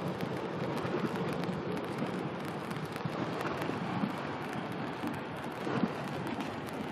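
Steady rushing of wind and water with small crackles scattered through it.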